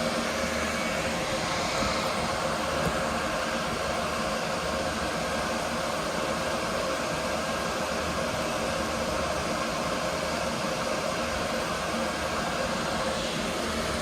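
Steady whir of cooling fans with faint steady hum tones underneath, and a couple of faint clicks about two and three seconds in.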